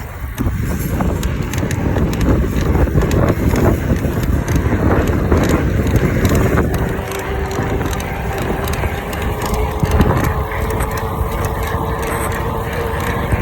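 Electric bike creaking and clicking in the frame with each pedal stroke while being ridden, over wind and tyre rumble. A steady whine joins about seven seconds in. The owner traced the creak to the three dry bolts that hold the motor to the frame.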